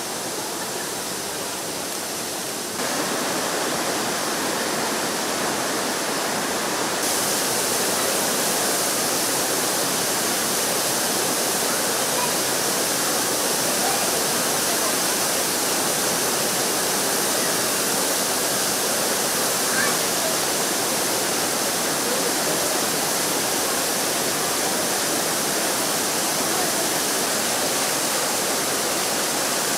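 Düden Waterfall's water falling and rushing in a steady, dense roar. It grows louder in two steps, about three and seven seconds in.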